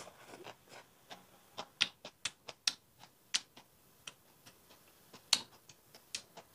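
Close-miked chewing of crisp raw pepper elder (rau càng cua) salad: irregular sharp crunchy clicks and smacks, a few to several a second.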